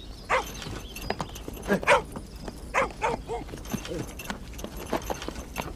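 Horse's hooves clopping, a string of separate, unevenly spaced hoofbeats.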